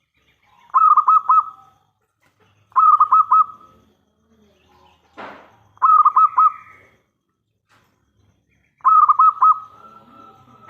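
Zebra dove (perkutut) cooing: four loud phrases about two to three seconds apart, each a quick run of three or four notes. A short rustling noise falls between the second and third phrases.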